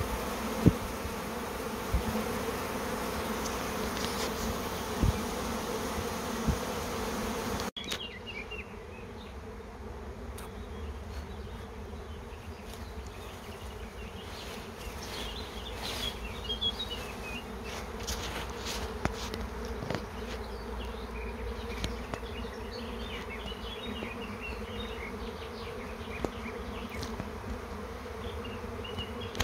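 Honeybee swarm buzzing, a steady hum of many wings as a large part of the colony leaves the hive with the old queen. The hum drops suddenly in level about eight seconds in and then carries on a little quieter.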